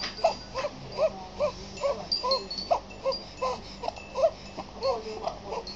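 A baby whimpering and fussing in short, repeated little cries, about two or three a second. Faint high chirps can be heard behind them.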